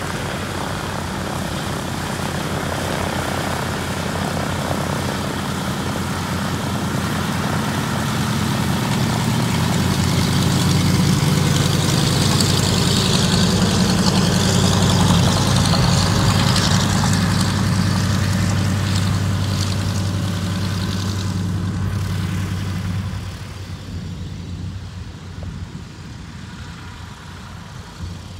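Douglas DC-3's twin radial piston engines and propellers running as the airliner taxis past. The engine sound builds to its loudest as the plane comes close, then drops off sharply about 23 seconds in as it moves away.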